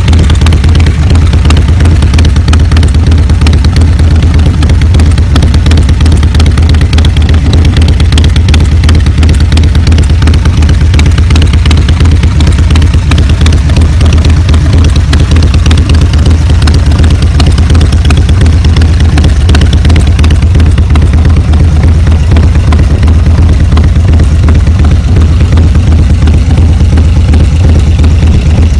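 Harley-Davidson Fat Bob FXDF's Twin Cam 103 V-twin idling steadily and loudly, with no revving.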